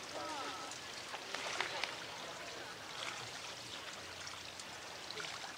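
Water polo players splashing in the pool, a steady low wash of water with scattered small splashes, and faint distant voices shouting.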